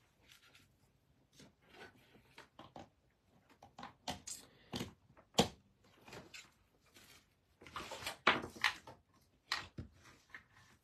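Hot glue gun and craft tools being picked up and handled on a wooden table: irregular clicks, taps and rustles, with a sharp knock about five and a half seconds in and a cluster of louder knocks a little after eight seconds.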